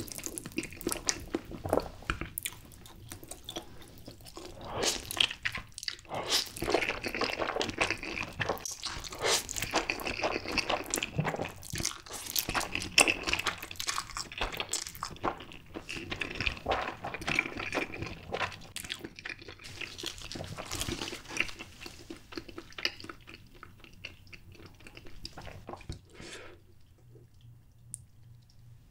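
Close-miked eating sounds of spicy stir-fried instant noodles: the sauce-coated noodles are slurped in and chewed, with wet smacking strokes. The sounds die down shortly before the end.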